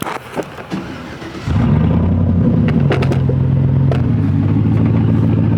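A vehicle engine starts about one and a half seconds in, after a few light clicks and knocks, and settles into a steady idle: the tow vehicle for the flatbed trailer being started up.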